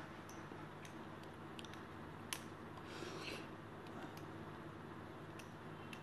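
Faint, irregularly spaced light clicks over a low steady background hum, with one sharper click a little over two seconds in and a brief soft rustle about a second later.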